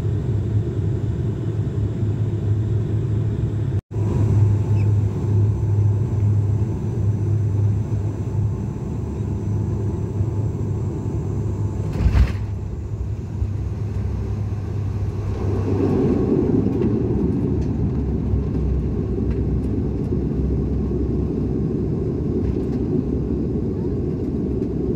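Cabin sound of a SpiceJet Bombardier Q400 turboprop landing: a steady propeller-engine drone with a low hum. A single sharp thump about twelve seconds in marks the wheels touching down, and from a few seconds later the engine noise grows louder and fuller as the plane slows on the runway.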